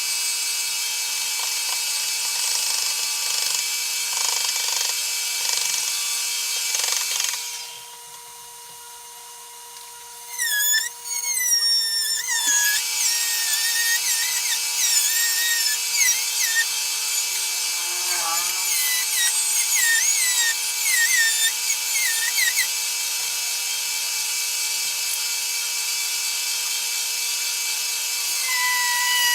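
A milling machine's cutter is running and cutting into wood, with a steady motor tone and a high hiss. About seven seconds in the cutting drops away for roughly three seconds while the motor tone carries on. Then it resumes with a run of rapid, wavering squeals for about ten seconds before settling back to a steady cut.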